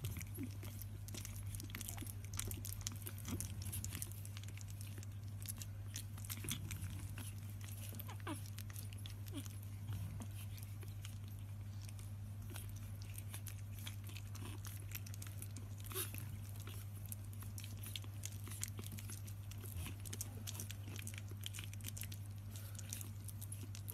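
Puppies play-biting and mouthing each other, with many small wet clicks and smacks of chewing. A steady low hum runs underneath.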